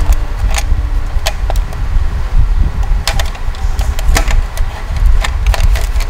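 Plastic toy tanker truck being handled: irregular clicks and knocks of plastic parts over a steady low rumble.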